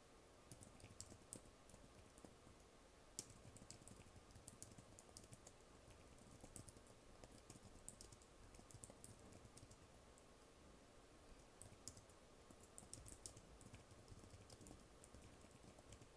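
Quiet typing on a computer keyboard: runs of rapid key clicks broken by short pauses.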